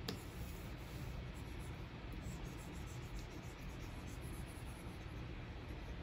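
Stylus nib scratching and tapping on the screen of a Wacom Cintiq 24 Pro pen display during brush strokes, with one sharp tap at the very start. A steady low background noise runs beneath.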